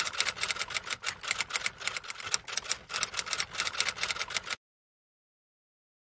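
Typing sound effect: a rapid, uneven run of key clicks that cuts off suddenly about four and a half seconds in.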